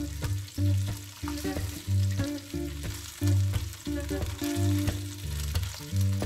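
Chicken wings sizzling as they fry in sunflower oil in a skillet, with a wooden spatula moving them in the pan. Background music with a steady run of bass notes plays over the frying and is louder than it.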